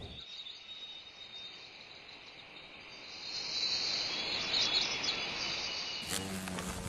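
Insects chirring steadily with a few short bird chirps, growing a little louder past the middle. Near the end a low hum with crackle cuts in suddenly.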